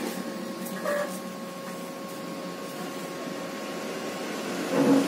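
Canon iR5000 photocopier humming steadily with faint high steady tones while it receives a print job, with a small click about a second in. Near the end the sound grows louder.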